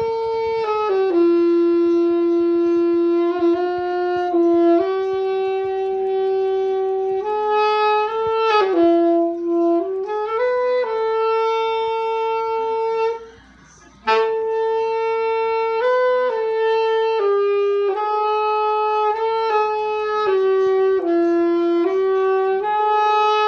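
Alto saxophone played by a beginner: a slow line of long held notes, the pitch stepping up and down every second or two. The playing breaks off once for about a second, a little past halfway.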